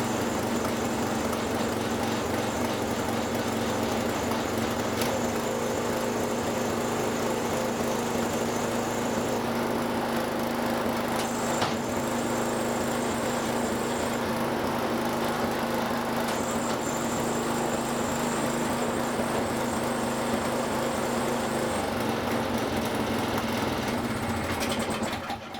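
Toro Power Max 724 snowblower engine running steadily at a constant speed, its carburettor trouble cured. It cuts off near the end.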